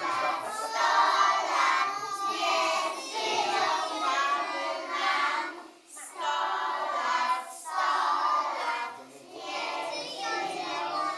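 A group of young children singing a song together, in phrases of a couple of seconds with short breaks between them.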